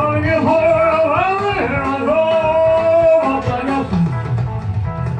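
Man singing a rockabilly song into a microphone over a backing track with guitar and bass, bending his pitch and then holding one long note that ends about three seconds in.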